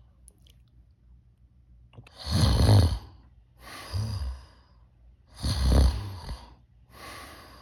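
A person snoring on purpose while wearing an intraoral anti-snoring appliance (a mouthpiece). There are two loud snores about three seconds apart, each followed by a softer, shorter sound.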